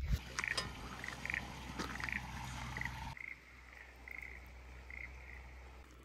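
Frogs croaking: short pulsed calls repeating irregularly, about twice a second, over a faint low hum. A few light knocks come in the first second, and the background changes abruptly about three seconds in.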